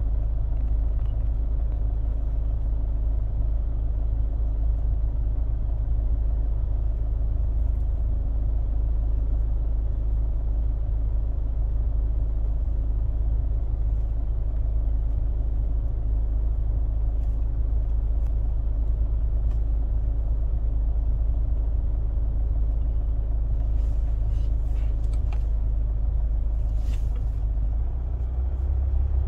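Car engine idling, heard from inside the cabin as a steady low rumble. Near the end the rumble shifts and the loudness dips and rises as the car starts to pull away.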